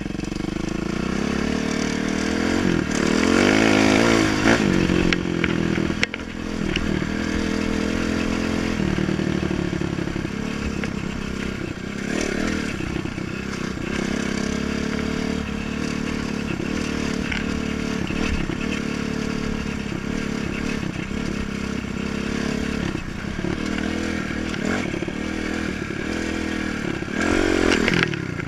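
Dirt bike engine running while being ridden, its pitch rising and falling with the throttle, loudest as it revs up about four seconds in and rising again near the end.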